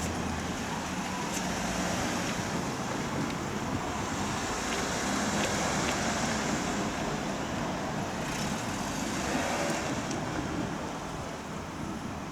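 Road traffic passing over a level crossing: a steady rush of cars and trucks going by, with louder passes partway through and again later on.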